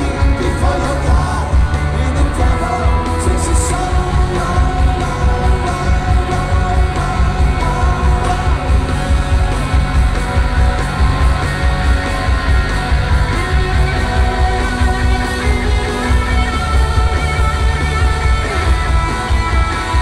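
Live rock band playing loudly through a concert PA, heard from within the crowd: electric guitars, keyboards, bass and drums driving a steady beat, with a lead vocal.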